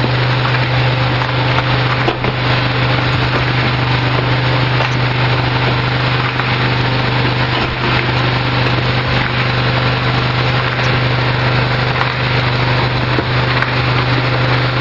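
Pothole-filler mixer running steadily, churning a batch of cold-mix bitumen pothole filler: a constant deep hum under a dense gritty rattle with scattered ticks.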